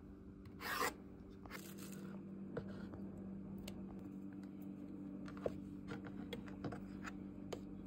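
A blade scraping and shaving long strips off a zucchini on a wooden cutting board. There are two louder strokes in the first two seconds, then light scrapes and clicks over a steady low hum.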